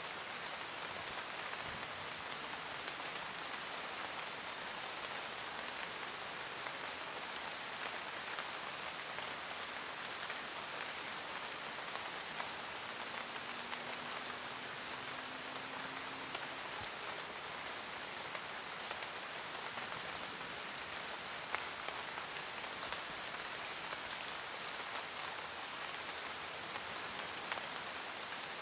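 Steady rain falling in a forest: an even hiss of rainfall with scattered individual drops ticking throughout.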